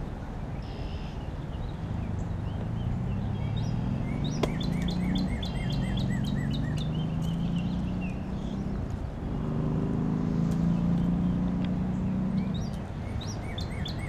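Low engine hum of passing road traffic, swelling and sliding slowly in pitch, over a steady outdoor background. A songbird sings a quick run of repeated chirps a few seconds in, just after a single sharp click.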